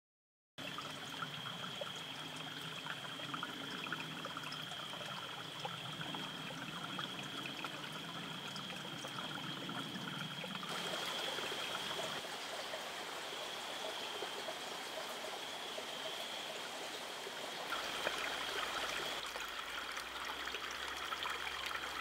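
Small mountain stream trickling over rocks, a steady rushing-trickling water noise with a thin steady high tone running along with it. Its character shifts slightly twice, at about the middle and near the end.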